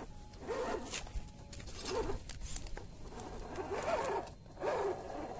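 Scale RC crawler's electric motor and gearbox whining in about four short rising-and-falling spurts as the throttle is pulsed, with the tyres scrabbling through mud and clay.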